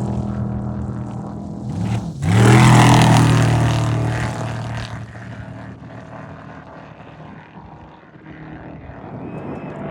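Off-road race vehicles' engines passing at speed. One is fading as the sound opens, and a second sweeps past about two seconds in with a drop in pitch before fading away. Another starts to approach near the end.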